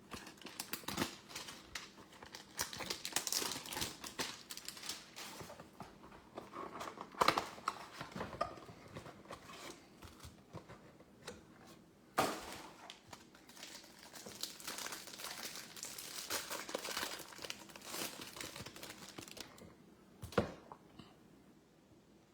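Trading-card hanger packs being opened by hand: wrappers and packaging crinkling and tearing in a continuous run of small crackles and rustles, with a few sharper tearing snaps along the way.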